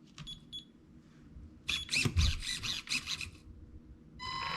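A run of plastic clicks and rattles from handling the RC buggy and its radio, then, near the end, a newly installed Red Cat 550 brushed electric motor spinning up through the gears with a steady whine.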